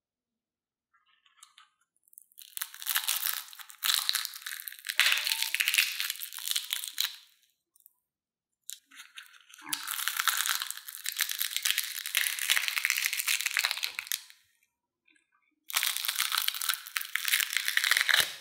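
Crisp, hollow shell of a fried potato-and-cornstarch puff crackling and crunching as fingers squeeze and tear it open, in three long bursts of fine crackling.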